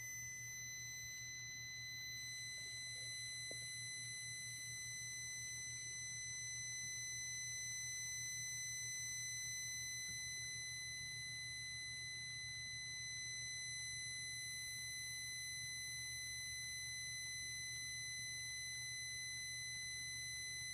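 2005 VW Passat 1.8T's warning beep sounding as one long unbroken high tone with the key at ON, over a steady low electrical buzz. The owner takes the buzz for an electrical short, which also drains about 4 amps with the key on.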